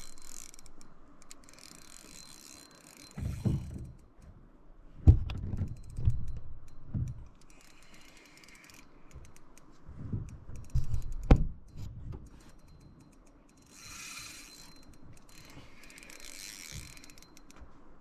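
Fishing reel ratcheting in short spells while a hooked fish is played and reeled in. Several dull thumps come between the spells, the heaviest about five seconds in and again about eleven seconds in.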